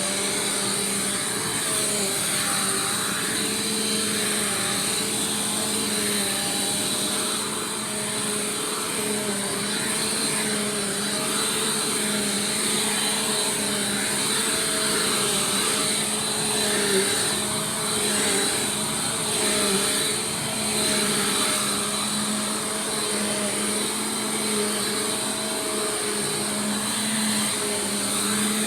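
Bissell Powerforce Compact Turbo upright vacuum cleaner running: a steady motor hum and airflow whine with small rises and dips in level.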